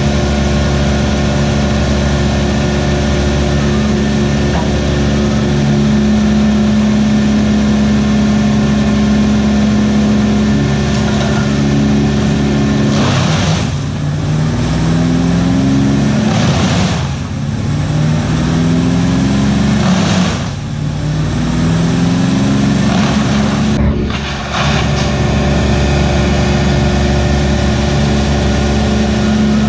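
A large engine on tree-removal machinery running steadily at speed. About halfway through, four noisy bursts come roughly every three to four seconds; with each one the engine pulls down under load and climbs back up in pitch, then it settles into a steady run again.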